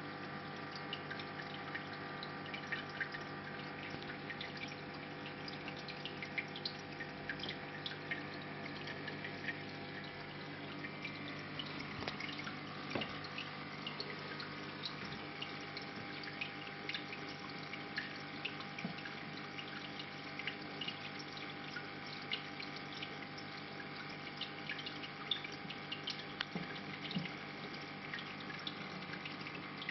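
Reef aquarium running: water trickling and dripping with many small ticks and splashes, over a steady hum from the tank's pumps.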